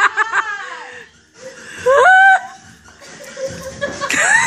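Women laughing, opening with a quick run of "ha-ha-ha" pulses, followed by a short rising voiced call about two seconds in and another rising call near the end.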